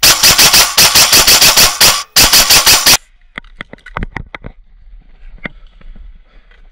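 Airsoft rifle firing full-auto right by the microphone: a rapid burst of about two seconds, a brief break, then a shorter burst of under a second. Scattered single sharp clicks follow.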